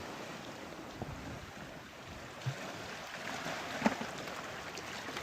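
Steady wash of sea water with wind on the microphone, with a low thump about two and a half seconds in and a single sharp click near four seconds.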